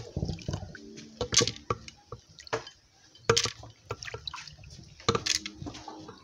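Water with a few groundnuts poured from a small glass bowl into a blender jar of groundnuts, dripping and splashing, with several sharp clicks and taps between the pours.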